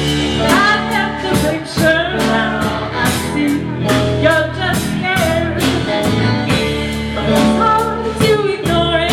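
Live band playing a blues-rock song with a singer, electric guitar, bass and drum kit, the drums keeping a steady beat.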